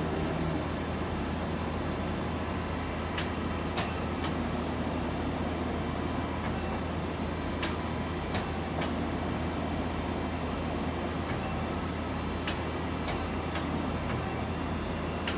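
Powered-up Okuma Simulturn LU-400 CNC turning center giving a steady low hum, with scattered sharp clicks and short high beeps every few seconds.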